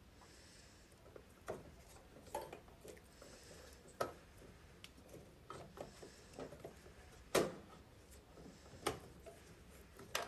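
Scattered light clicks and knocks of screws, tools and metal panels being handled during microwave disassembly, the loudest about seven seconds in.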